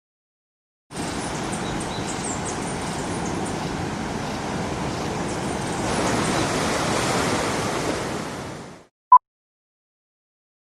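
Sea surf washing steadily, starting about a second in and fading out. A single short, sharp beep follows it.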